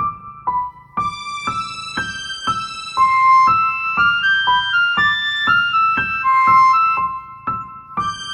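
Background music: a bright electric-piano melody, a new note struck about every half second.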